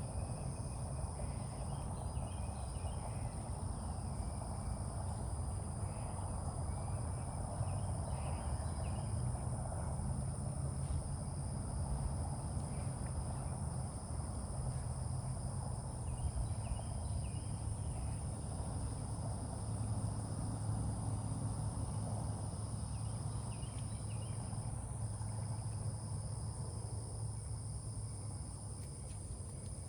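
A steady chorus of insects chirring at a high pitch, with a low, steady rumble underneath and a few faint short chirps scattered through.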